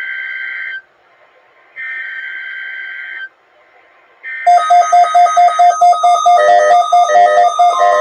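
Emergency Alert System SAME header for a required weekly test: bursts of shrill digital data tones, each about a second and a half with a second's pause between. About four and a half seconds in, music with a fast repeating note pattern starts under the last burst.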